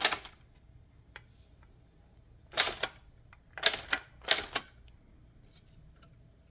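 Smith Premier No. 10 manual typewriter typing a short test word, a handful of sharp, spaced-out key strikes of the typebars against the platen, printing through the red half of the ribbon.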